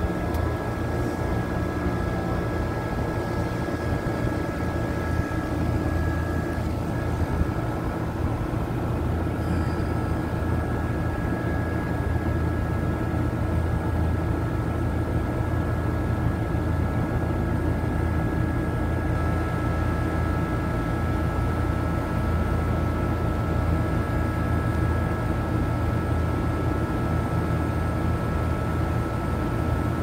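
Central air conditioner condensing unit with its condenser fan motor running steadily, a low hum with a faint steady high whine over it. The compressor stays off and draws no current, the no-cooling fault on this unit.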